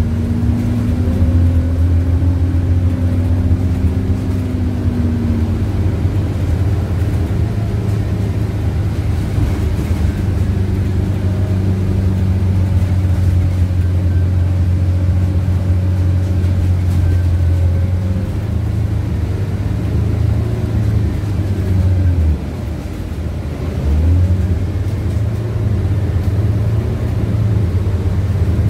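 Scania CityWide LF city bus with a compressed-natural-gas engine, heard from inside the passenger cabin while driving: a steady low drone of engine and running gear. About three-quarters of the way through, the drone drops for a second or two, then picks up again.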